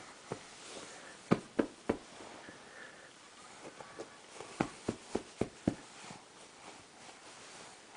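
Light pats of a baby's hands on a fabric couch cushion: three a little after the start, then a run of five around the middle.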